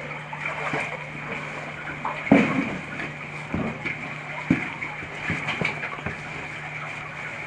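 A caver moving with gear through a wet cave passage: a string of knocks, scrapes and splashes, the loudest about two seconds in, over a steady low hum.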